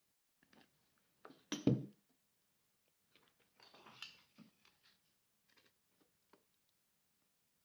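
Tabletop handling of a glass jar of instant coffee: a single sharp knock a little under two seconds in as something is set down, then a metal spoon scraping and scooping the coffee granules inside the glass jar, followed by a few light taps.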